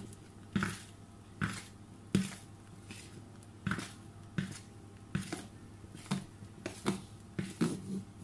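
A utensil stirring in a bowl, knocking and scraping against its side about once a second and a little quicker near the end, as whipped egg whites are folded into sponge-cake batter.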